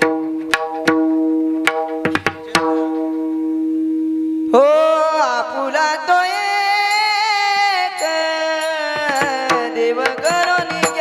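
Marathi devotional bhajan music: a steady held drone with a few tabla strokes, then about halfway through a singer comes in on a high, long-held note with wavering ornaments.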